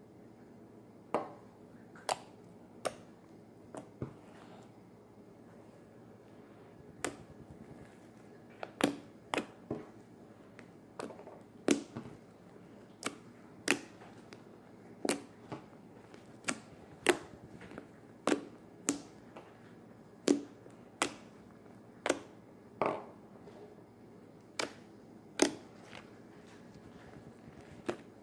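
Foamy shaving-cream slime being kneaded and pressed by hand, giving sharp pops and clicks at irregular intervals, about one a second.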